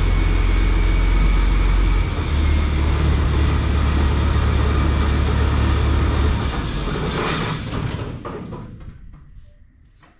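Tractor engine running with a heavy low hum that shifts in pitch about two seconds in, then fades away over the last few seconds.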